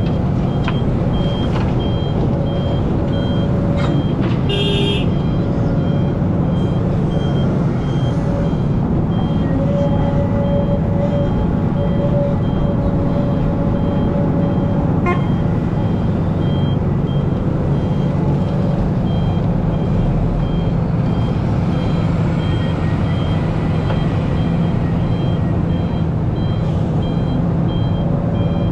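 Hidromek hydraulic excavator's diesel engine running steadily as it digs and loads, with a reversing alarm beeping about twice a second.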